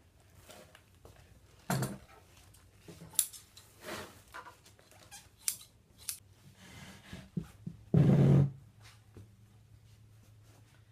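Upholstery scissors cutting polyester batting from a roll in a few separate snips, then the loose batting rustling as it is handled onto a foam-padded chair back. A louder noise lasting about half a second comes about eight seconds in.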